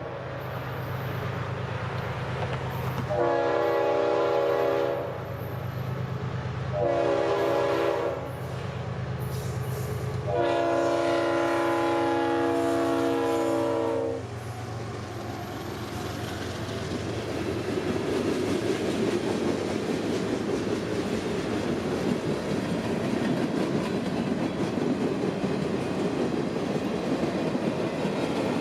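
CSX 3194's RS-5T five-chime air horn sounding three blasts, the last and longest lasting several seconds, over the steady drone of two GE Evolution-series diesel locomotives working under power. After the horn stops, a rumble of wheels on the rails builds steadily as the train rolls through.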